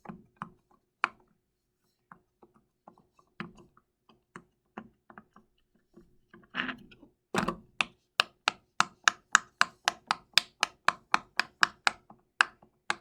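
Bubbles of a silicone pop-it fidget toy being pressed in, making short pops. They come one at a time at first, then from about seven seconds in as a quick, even run of about three or four pops a second.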